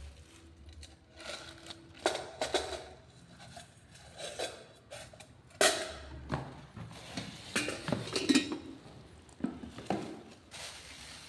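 Irregular clinks and knocks of blender parts being handled and fitted together during assembly, with a few sharper taps spread through.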